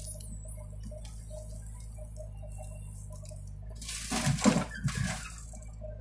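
A load of soil pours out of a JCB 3DX backhoe bucket into a tractor's steel trolley in a rough, rushing burst about four seconds in, lasting roughly a second. A diesel engine hums steadily underneath.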